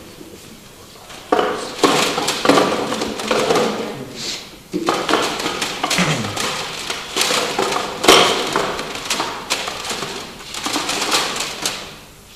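Irregular clattering and knocking of album cases being rummaged through and picked up, starting about a second in and keeping on in fits with short pauses.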